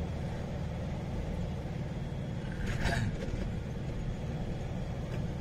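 Steady low engine and road rumble of a moving car, with a brief sharper noise about three seconds in.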